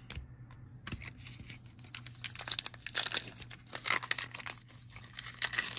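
A baseball card pack's wrapper being torn open and crinkled by hand. There are a few small clicks at first, then a dense run of crackling and ripping from about two seconds in.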